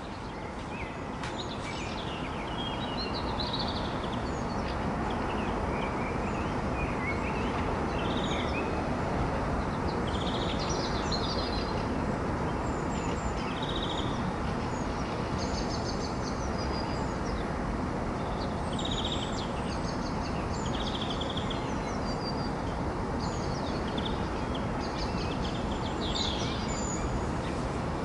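Several songbirds chirping and singing, with short repeated trills and calls, over a steady low city hum.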